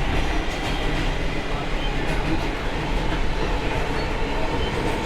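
Interior of a New York City subway car running at speed underground: a steady low rumble of wheels and motors with the light clatter of wheels over rail joints.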